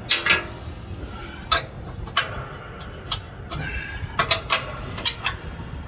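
Sharp metallic clicks and clinks of wrenches and bolt hardware on a tower antenna mount, about a dozen irregular strikes, some in quick pairs.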